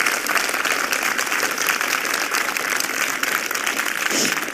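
Audience applauding steadily: many hands clapping at once, marking the end of a talk.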